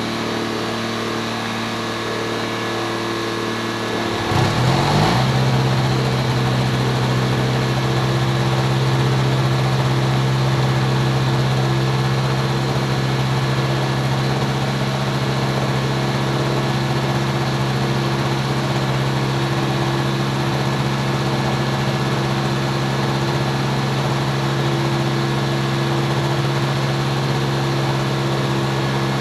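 Microlight trike's engine and pusher propeller running with the trike standing still. About four seconds in the engine speeds up, then holds a steady, louder run.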